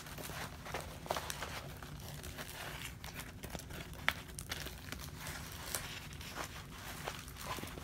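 Diamond painting canvas and its plastic cover rustling and crinkling as it is handled and smoothed flat, with small clicks throughout and one sharp tick about four seconds in.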